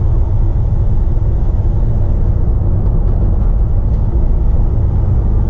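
2015 Renault Master van's diesel engine and road noise heard from inside the cab while driving: a steady low rumble.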